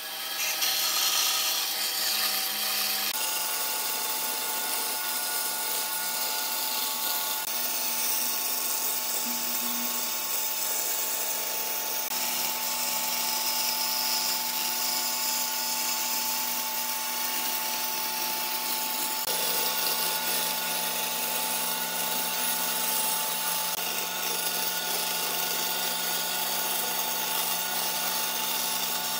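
Bandsaw running and cutting a curve through pine boards: a steady motor whine with the hiss of the blade in the wood.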